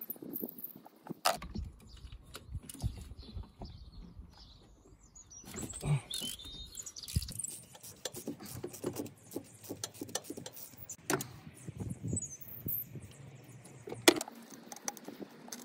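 Metal parts and hand tools clinking and knocking in a car's engine bay as fittings on a turbo oil feed pipe are worked loose by hand. Irregular clicks and rattles over rustling, with one sharp click near the end and a few faint bird chirps.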